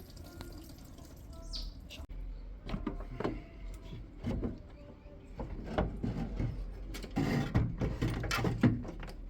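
Irregular knocks, clanks and scrapes of hand tools and metal parts being worked loose in a car's engine bay during teardown. They start about two seconds in and come thickest near the end.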